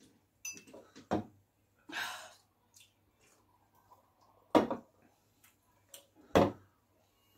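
A few scattered knocks and thumps of things being handled and set down on a table, the two loudest about four and a half and six and a half seconds in, with a short breathy hiss about two seconds in.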